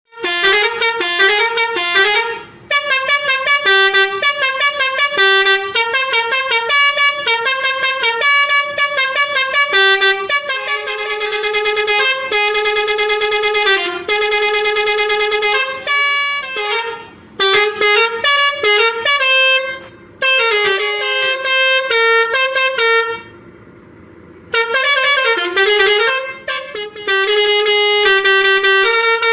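A bus's basuri telolet horn playing a melody of quick, loud tooting notes. The tune comes in several phrases with short breaks between them; the longest pause falls about 23 seconds in.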